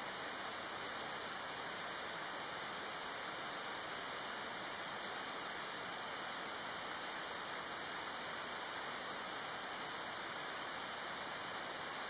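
Steady, even hiss of forest background noise with a faint high-pitched drone; no woodpecker calls or tapping.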